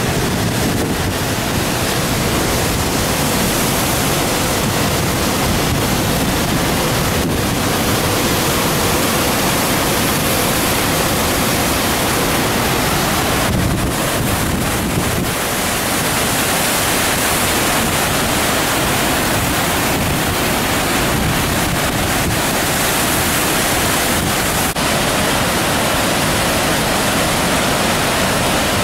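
Steady, loud rush of floodwater pouring through a dam spillway at a flood release of about 150,000 cubic feet per second.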